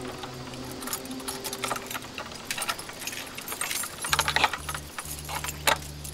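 A ring of keys jangling and clinking while keys are tried in an old padlock, with scattered metallic clicks. About four seconds in, a low steady hum comes in underneath.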